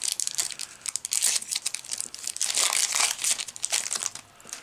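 Foil wrapper of a Yu-Gi-Oh booster pack crinkling and tearing as it is ripped open by hand, a dense crackly rustle that eases off near the end as the cards are slid out.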